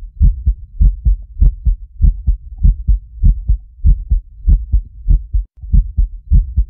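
Heartbeat sound effect: low double thumps repeating evenly at about a hundred beats a minute, with a brief break about five and a half seconds in.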